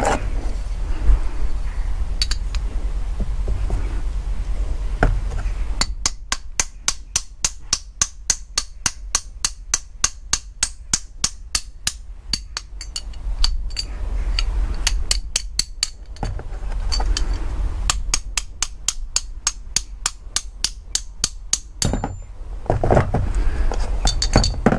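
Steel claw hammer tapping a soft copper drift to knock the jet block out of an Amal pre-Monobloc carburettor body, a tight fit. The taps come quick and even, about three or four a second, in a long run and then a shorter second run after a brief pause.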